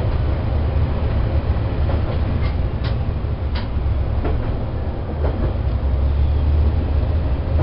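Diesel railcar running along the line, heard from inside: a steady low engine drone, with several sharp clicks from the wheels over rail joints in the middle.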